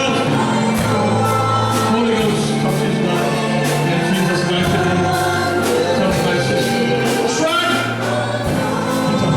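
Gospel music: a choir singing over instrumental accompaniment with a steady beat.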